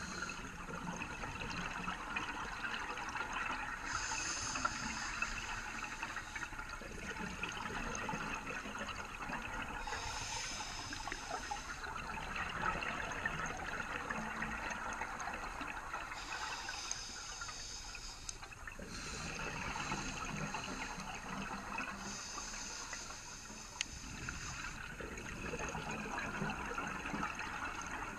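Scuba regulator breathing heard underwater through a GoPro housing: a hiss on each inhalation, recurring every few seconds, with the bubbling of exhaled air between breaths.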